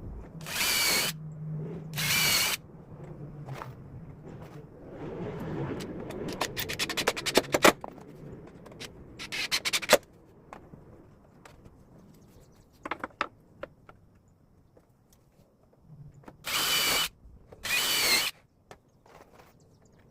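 Power drill running in short bursts of about half a second, twice near the start and twice near the end, with a motor whine in each. In between come scraping on wood and a quick run of clicks.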